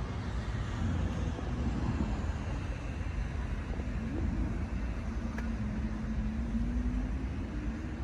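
Steady low rumble of city traffic, with the hum of a passing vehicle engine that wavers in pitch through the middle.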